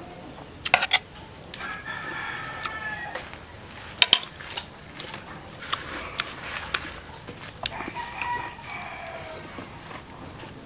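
A rooster crowing twice, each crow about two seconds long, with a few sharp clicks between the crows.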